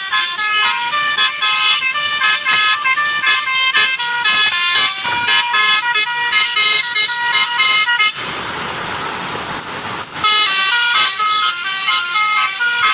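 Basuri telolet multi-tone bus horn playing a fast melody of short stepped notes. A little past the middle the melody breaks off for about two seconds of steady rushing noise, then resumes.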